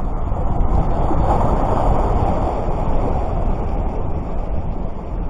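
Sea surf washing on the beach, swelling to a peak about one to three seconds in, with wind buffeting the microphone as a constant low rumble.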